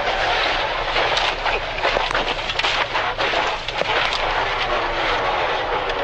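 Rally car at speed heard from inside the cockpit: the engine runs hard under a steady rush of road noise, with a flurry of short sharp cracks in the middle.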